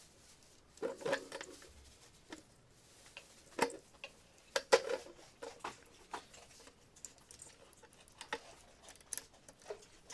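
Irregular light clicks and knocks of small hard objects being handled, the loudest a little before halfway.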